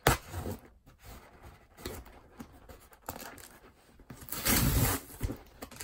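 Packing tape on a cardboard box being slit with a small blade, with scattered scratches and rustles of hands on cardboard. Past the middle comes a loud rip of about half a second as tape is torn off the box.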